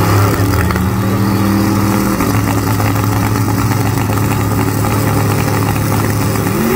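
Diesel pickup drag truck and a Chevrolet Corvette running at the drag-strip starting line while staged, their engines holding steady tones. Right at the end, an engine note sweeps sharply upward as they launch.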